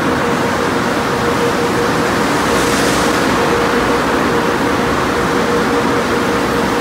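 Tunnel car wash machinery running: a steady rush of spraying water and equipment noise over a constant hum, with a brief hiss swelling about two and a half seconds in.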